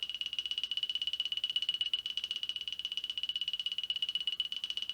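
Cartoon alarm-type sound effect: one high electronic ring, pulsing rapidly and evenly at a steady pitch.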